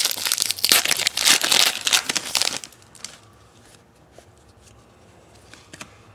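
Baseball-card pack wrapper crinkling and tearing as it is ripped open, stopping about two and a half seconds in. After that come a few faint ticks of the cards being handled.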